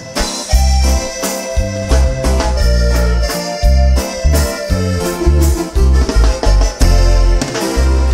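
Live band playing through the PA: a keyboard melody over a strong electric bass line and a steady beat of congas and drums.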